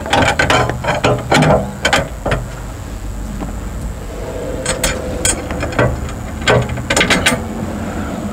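Irregular metal clicks and clinks of a bolt, washers and a self-locking nut being fitted through a steel landing-gear crossover tube, with a steady low hum underneath.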